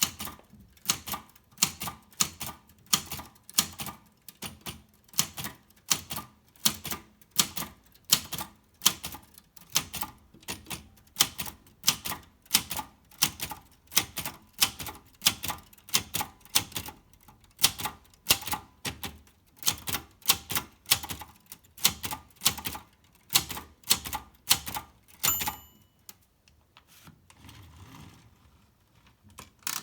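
Silver Seiko typewriter being typed on: sharp key and typebar strikes about one and a half to two a second. About 25 seconds in, a single bell-like ring sounds, followed by quieter sliding and clicking mechanism sounds.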